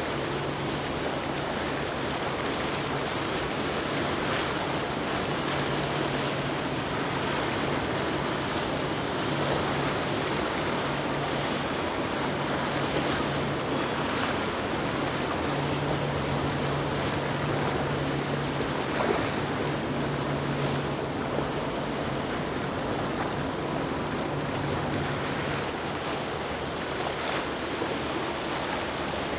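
Maxum 300 cruiser running through inlet surf: a steady rush of waves and water with a low engine hum that comes and goes underneath.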